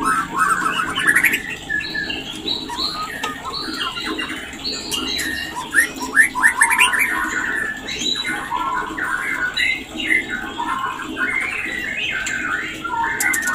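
White-rumped shama song: a continuous, varied run of rapid whistles and chattering notes with no pauses. It is the shama's breeding-condition (mating) song.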